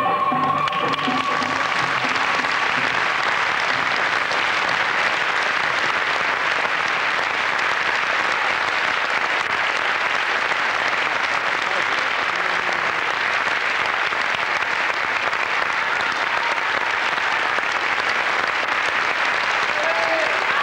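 An audience applauding steadily, with the last notes of the dance music fading out in the first second.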